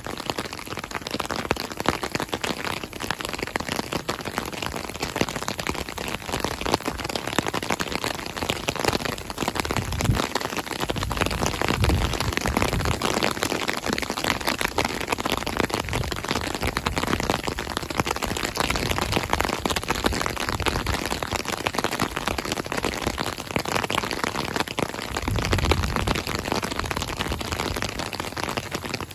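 Steady rain falling close to the microphone, a dense spread of drop hits on the wet pavement and gravel. Short low rumbles come through about a third of the way in and again near the end.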